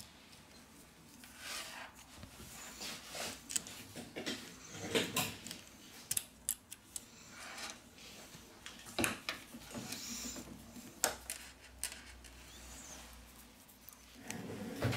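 Scattered small clicks, taps and soft scratchy rustles of hands handling a phone battery and the opened phone housing, as a replacement battery is set and pressed into a Huawei Mate 20.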